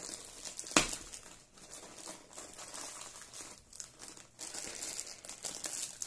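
Diamond painting canvas with its plastic cover film crinkling and rustling as it is handled and unrolled, with one sharp knock about a second in.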